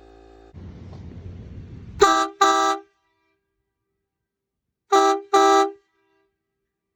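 Sparton D-2355 truck horn sounding two quick toots about two seconds in, then two more about three seconds later.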